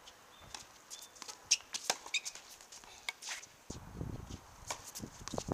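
Scattered sharp knocks of tennis balls bouncing on the hard court and being struck with rackets, the loudest about one and a half seconds in, with a few short high squeaks among them.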